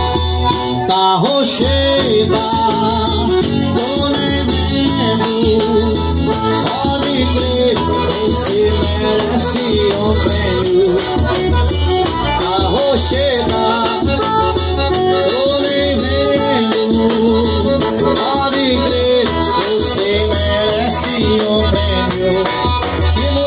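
Live forró band playing an instrumental passage: a piano accordion carries a wavering melody over steady beats on a blue bass drum struck with a stick.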